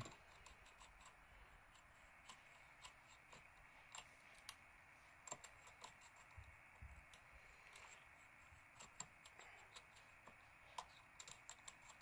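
Faint, irregular small metallic clicks and ticks from a Mul-T-Lock 8-in-1 rotor pick working the pins inside a Mul-T-Lock cylinder, as the pins are deliberately pressed past the shear line (oversetting).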